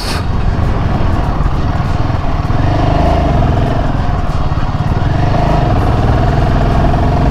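Royal Enfield Himalayan 450's single-cylinder engine running at low road speed over a rough, broken stretch. The engine note dips and picks up again a couple of times as the throttle changes, and a steady higher whine joins it about three seconds in.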